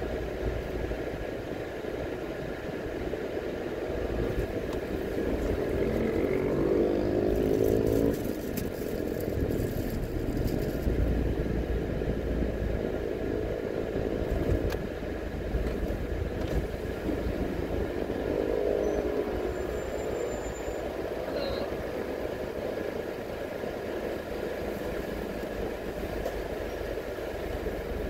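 Car engine and road noise heard from inside the cabin as the car slows to a stop.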